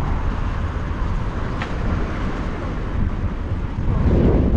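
Outdoor street noise: a steady low rumble of traffic and wind on the microphone, swelling about four seconds in as a car passes on the road alongside.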